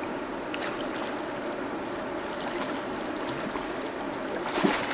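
River water rushing steadily past the bank, with small splashes. Near the end comes one louder, sudden splash as a hooked spring Chinook salmon thrashes at the surface close to shore.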